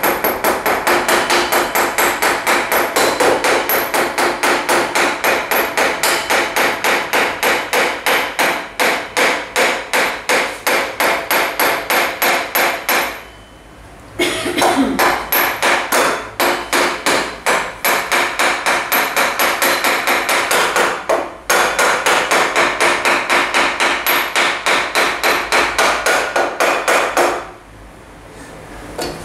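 Wooden mallet tapping rapidly on the end of a motorcycle's front wheel axle, about four blows a second, driving the axle into the hub and fork. The tapping breaks off for about a second about halfway through, pauses briefly again later, and stops shortly before the end.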